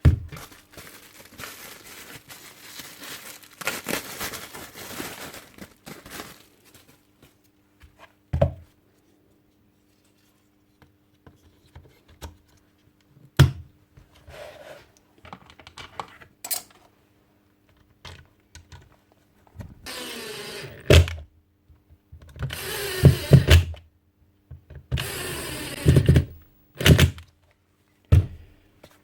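Hand-tool work on a Makita HR3540C rotary hammer's parts: metal knocked and scraped, with sharp knocks scattered through and three rough scraping bursts in the second half, over a faint steady hum.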